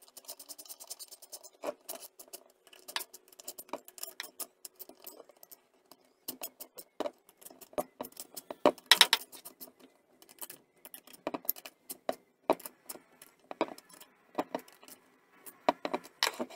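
Irregular metallic clicks and clinks of a small hand tool working against the valve gear and aluminium cylinder head of a Honda P50's 50cc four-stroke engine, with a cluster of louder clicks about halfway through.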